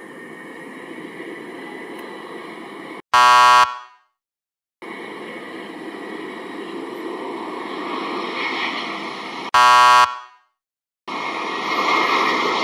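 Jet engine noise of an Airbus A320neo on landing approach, steady and growing louder toward the end. Twice it is cut by a loud, short buzzer sound effect, each followed by a second of dead silence.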